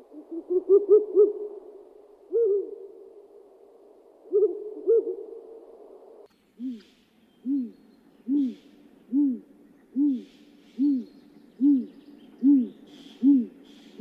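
A series of low hoots, each rising and falling in pitch. They come in a quick cluster at first, then from about six seconds in as a steady, evenly spaced run of roughly one hoot a second.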